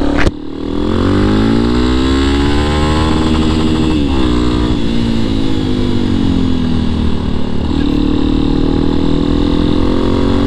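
Yamaha Tricker's 250 cc air-cooled single-cylinder engine under way. It revs up for about three seconds and drops sharply at a gear change about four seconds in, then runs on more evenly, with another step near eight seconds and a slow rise toward the end.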